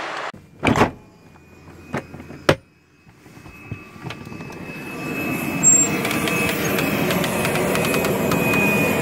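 A few sharp knocks and clunks, the loudest about a second in, as the cabin door and airstair of a Cessna Citation XLS are worked. Then a steady rush of ramp noise with a thin high whine, typical of a jet engine running on the apron, swells over a couple of seconds and holds as the door stands open.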